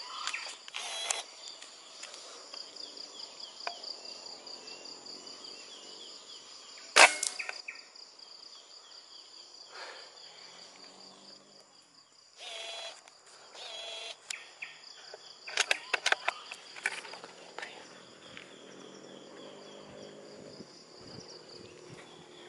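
A single PCP air rifle shot, one sharp crack about seven seconds in, over a steady high-pitched insect drone. Bursts of rustling through grass and brush follow.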